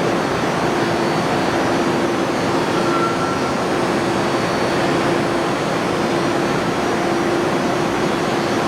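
Lagun FU-3-LA horizontal milling machine with a 10 HP motor running under power: a steady mechanical whir with a constant hum.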